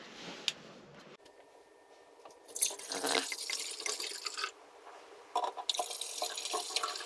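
Rosé wine poured from a bottle into stemmed wine glasses, splashing and gurgling in two pours of about two seconds each, starting about two and a half seconds in.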